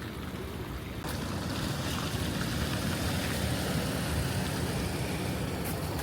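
Steady low vehicle rumble with a hiss above it, stepping up in level about a second in.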